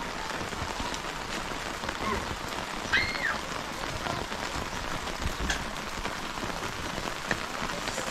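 Heavy rain falling steadily, with individual drops ticking close by. A brief high chirp rises and falls about three seconds in.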